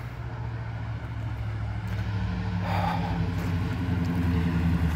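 AMC Gremlin's engine running as the car drives toward the listener on a wet road, its steady engine note growing louder throughout.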